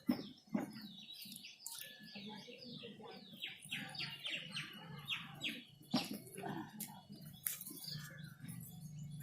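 A bird chirping a quick run of short, downward-sliding notes, about four a second, which stops about five seconds in. A few sharp clicks sound over it, and a low steady hum starts near the end.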